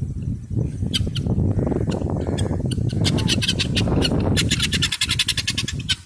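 Helmeted guineafowl calling: a harsh, rapid rattling chatter of more than ten notes a second, strongest from about three to five seconds in. A low rumble runs underneath.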